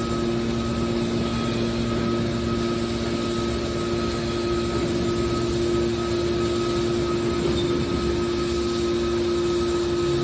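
Scrap metal baler's hydraulic power unit running with a steady hum.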